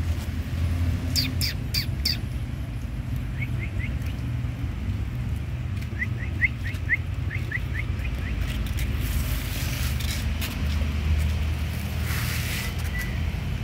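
Small birds giving short, quick chirps in little runs of three or four, over a steady low background rumble. There are a few sharp clicks near the start and a brief hiss of rustling noise near the end.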